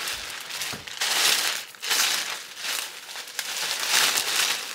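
Packaging crinkling and rustling by hand in several surges as a boxed purse is unwrapped.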